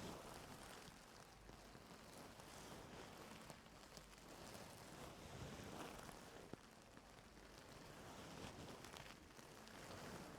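Faint, soft scratching and rustling of ear-cleaning tools working in the ear canal, picked up close on a sensitive microphone, with a few small ticks.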